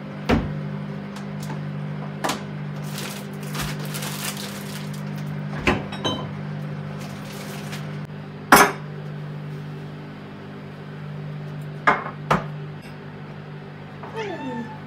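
Kitchenware being handled: about six sharp knocks and clinks of dishes and utensils set down, the loudest about halfway through, with a brief hiss a few seconds in, over a steady low hum.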